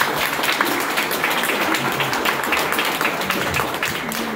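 Audience applauding, a dense run of hand claps that eases slightly near the end.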